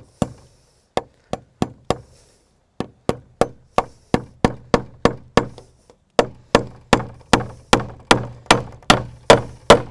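Claw hammer driving a U-shaped fence staple over a welded-wire panel into a wooden fence board: a run of sharp strikes about three a second, in groups with short pauses, the blows getting louder near the end.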